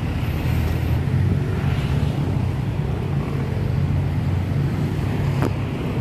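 Steady rumble of city road traffic, with one short click near the end.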